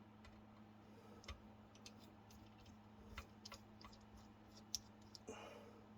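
Faint, irregular small metallic clicks and ticks of a screwdriver and a small screw working against metal kit parts, as the screw is turned without catching its thread, over a faint steady hum.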